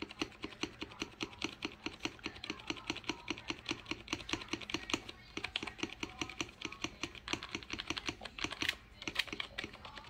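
Klim Chroma wireless keyboard being typed on quickly: a rapid, steady run of key clicks, several a second, with a brief pause about nine seconds in.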